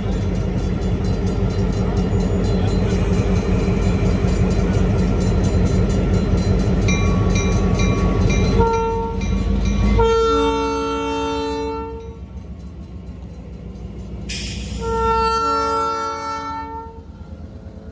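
An SW1500 switcher locomotive's diesel engine runs loudly close by. Its multi-note air horn then sounds three blasts: a short one about nine seconds in, a long one right after it, and another long one near the end, with a brief hiss of air just before the last blast.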